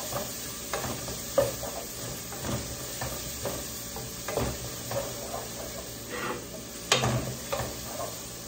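Wooden spoon stirring garlic, ginger and onion frying in oil and margarine in a pot: a steady sizzle, with the spoon knocking and scraping against the pot about once a second. The sharpest knock comes about seven seconds in.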